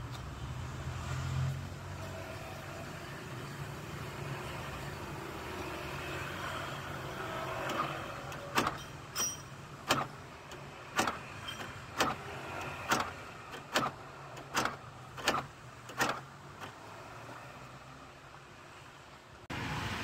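Universal door lock actuator in a Hyundai Avega's rear door clicking as it is cycled between lock and unlock during a test of its temporary wiring. About ten sharp clicks come a little under a second apart, starting a little before halfway, after a steady low hum.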